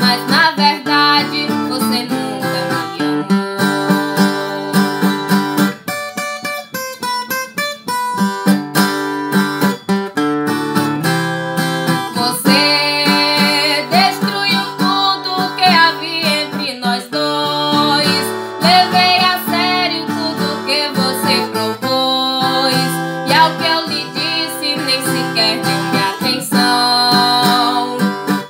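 Brazilian viola with metal resonator plates, played in a steady picked and strummed accompaniment with a short dense strum about six seconds in. A woman's singing voice comes in over parts of it.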